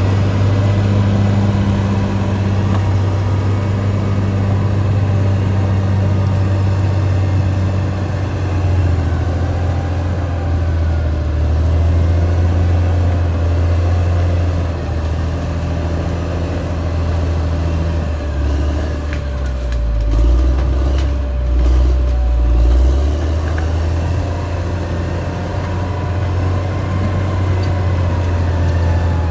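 Caterpillar D6R XL bulldozer's diesel engine running steadily under working load. Its note dips lower and swells briefly about twenty seconds in.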